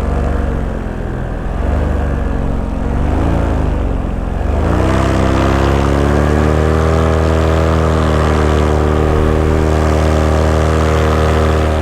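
Paramotor engine and propeller running in flight, wavering at a lower throttle, then throttled up about four and a half seconds in with a rising pitch and held steady at the higher setting.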